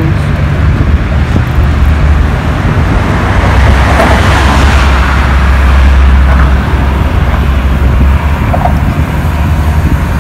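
Steady rumble of road traffic, with a louder vehicle passing about four to five seconds in.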